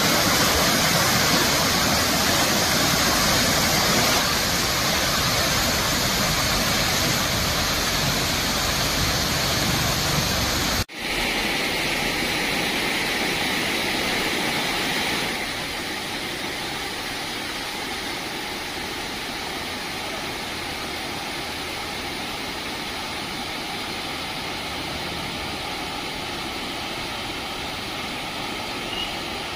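Floodwater spilling over a river weir: a steady rush of water. It cuts out for an instant about eleven seconds in, then comes back, and grows quieter a few seconds later.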